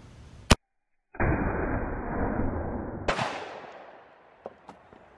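ATI Omni AR-410 semi-automatic .410 shotgun firing birdshot: a sharp report about half a second in, then a loud, muffled, drawn-out boom, and a second sharp shot about three seconds in that rings out and fades over about a second and a half.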